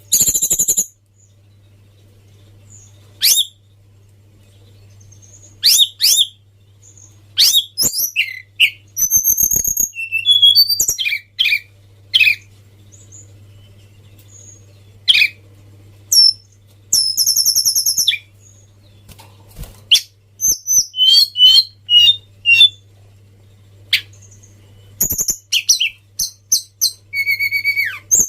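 Tledekan gunung songbird singing in short, high-pitched chirps, whistles and quick trills, in irregular phrases with pauses between them. A faint steady low hum runs underneath.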